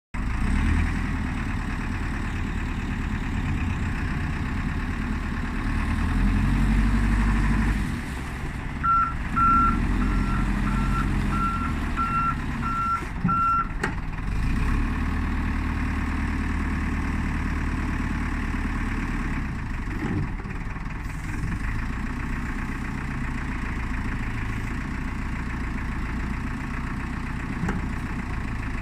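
Volvo BL70 backhoe loader's 94 hp Volvo diesel engine running, revving up a couple of times early on. About nine seconds in, the backup alarm beeps eight times as the machine reverses.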